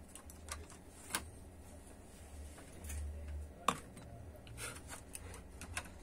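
Scattered sharp clicks and light taps of a laptop's plastic casing parts and screws being handled during disassembly, over a low hum that comes and goes.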